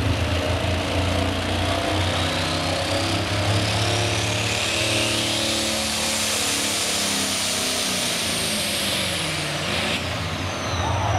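V8 Perkins diesel of a Super Stock pulling tractor running at full throttle on a pull, with a high whine that climbs over the first few seconds, holds, and falls away near the end as the engine comes off the throttle.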